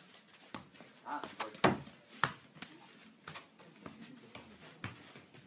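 A football rally over a curved Teqball table: the ball struck by feet and heads and bouncing on the tabletop, a string of irregular sharp thuds with the two loudest a little under and a little over two seconds in.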